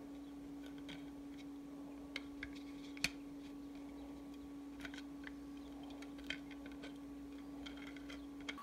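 Light, irregular clicks and taps of hard plastic as a 3D-printed maze sphere and its ring are turned in the hands, with one sharper click about three seconds in. A steady low hum runs underneath and stops at the very end.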